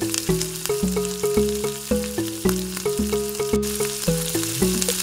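Background music with a stepped melody and bass line over hot oil sizzling in a pan as whole spices fry; chopped onions go in near the end, and the sizzle carries on under the music.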